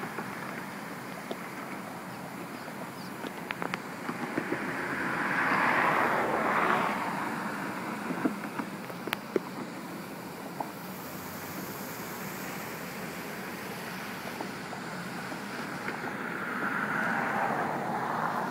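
Floodwater rushing through a reservoir spillway and churning across the flooded basin: a steady rushing noise that swells louder around six seconds in and again near the end, with a few faint clicks.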